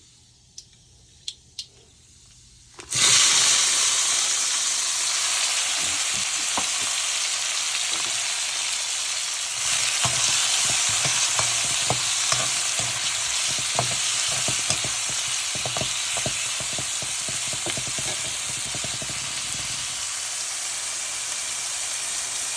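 Chopped shallots, onion and curry leaves tipped into hot oil about three seconds in, setting off a loud, steady sizzle. A spoon clicks against the pan as they are stirred.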